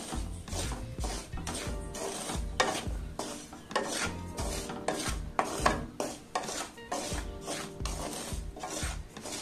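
Wooden spatula scraping and stirring dry semolina (rava) as it roasts in ghee in an aluminium kadai: a rasping scrape with each stroke, about two strokes a second.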